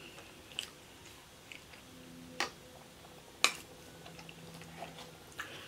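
A few sharp clicks and taps of a plastic fork against a metal baking tray as food is picked at, the two loudest about two and a half and three and a half seconds in.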